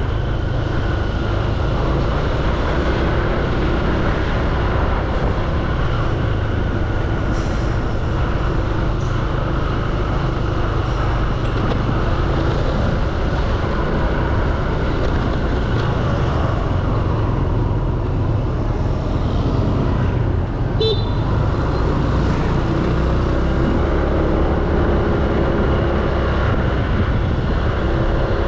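Steady noise of a motor scooter riding through city streets at low speed: a low rumble of engine, tyres and air over the microphone, with traffic around it.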